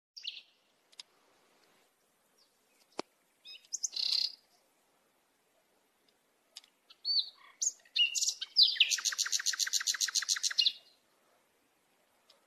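Small songbird chirping in short scattered calls, then a louder fast trill of about seven even notes a second lasting roughly two seconds, beginning a little past the middle.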